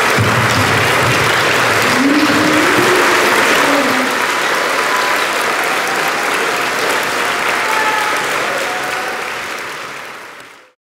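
Audience in an auditorium applauding, with a few voices calling out, fading out near the end.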